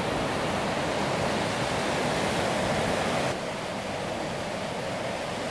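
White-water river rapids rushing: a steady, even noise of fast water over rocks, dropping a little in level about three seconds in.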